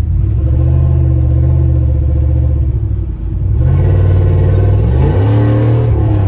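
2000 Dodge Durango's exhaust, muffler deleted with only a gutted catalytic converter left, droning steadily at cruise. About three and a half seconds in it gets louder and rises in pitch as the engine accelerates, then drops back near the end as it shifts.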